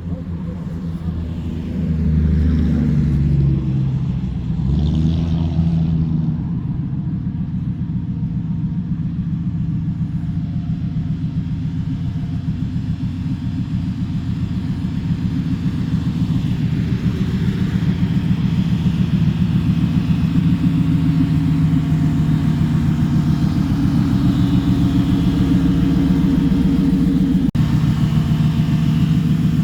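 Car engine idling with a steady low rumble, its revs rising and falling a few seconds in.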